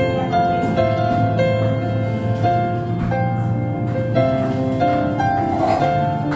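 Background instrumental music: a gentle melody of held notes that change a few times a second.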